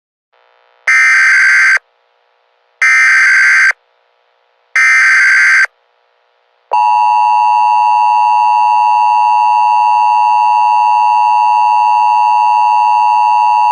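Emergency Alert System SAME header: three identical one-second bursts of warbling data tones about a second apart. Then the steady two-tone EAS attention signal comes on about seven seconds in and holds.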